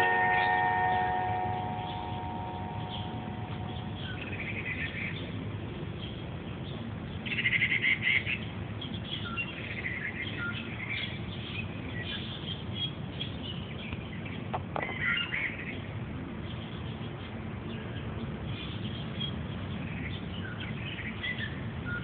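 Small birds chirping: scattered short, high chirps, with a louder burst of calls about seven seconds in and another around fifteen seconds. A bell's ringing tones die away over the first few seconds.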